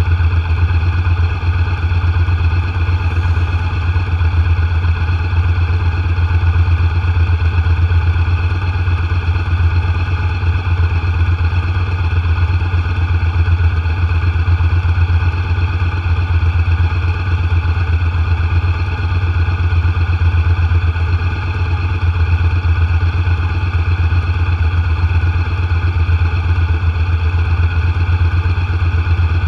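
Vehicle engine idling steadily, a loud, even low hum with no change in pitch.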